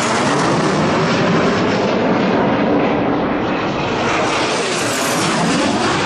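Dassault-Dornier Alpha Jet's twin turbofan engines at high speed on a low display pass: a loud, whizzing jet rush. Its tone sweeps down and then climbs again towards a high peak near the end.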